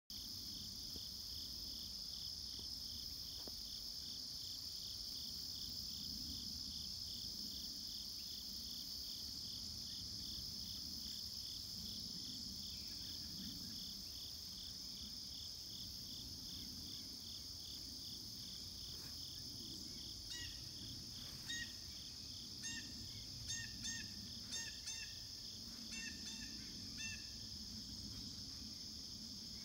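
Cicadas droning steadily, a high even drone with a fast pulsing trill just beneath it. About two-thirds of the way in a bird joins with a run of short chirps that go on until near the end.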